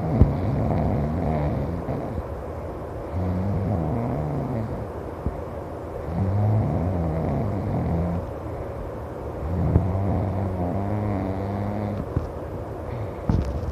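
A person snoring loudly: four low, wavering snores about three seconds apart.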